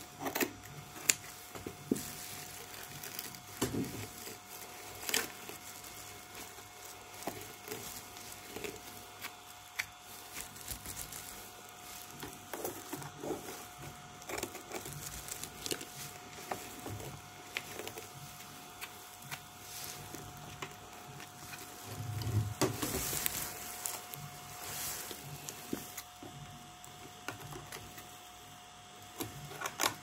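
Hair being cut and pulled off a vacuum cleaner's brush roll with a blade and rubber-gloved fingers: scattered small clicks, scrapes and rustles, with a longer spell of rustling about two-thirds of the way through. A faint steady whine runs underneath.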